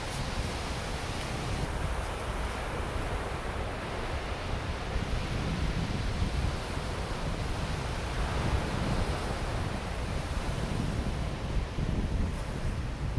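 Ocean surf washing onto a sandy beach, a continuous rushing wash that swells and eases, with a low wind rumble on the microphone.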